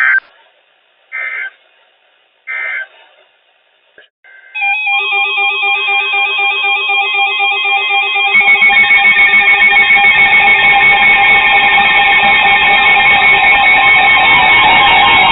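NOAA Weather Radio end-of-message data tones: three short raspy digital bursts about a second apart. About four and a half seconds in, music starts with bright electronic tones, and fuller guitar music fills in from about eight seconds.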